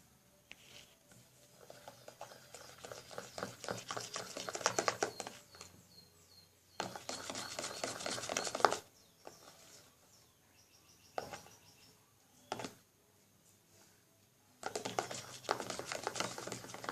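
A spoon stirring white glue and shaving foam in a pot, going in quick scraping strokes. It comes in three bursts of a few seconds each, with a couple of single taps in between.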